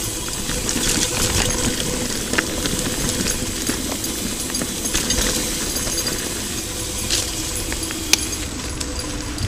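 Mountain bike rolling along a dirt trail: steady tyre and wind noise with a few sharp clicks and rattles from the bike.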